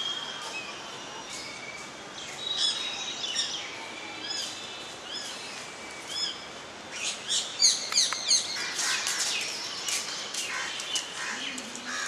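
Birds chirping in trees: a short arched chirp repeated roughly every second, then a busier flurry of rapid chirps around the middle.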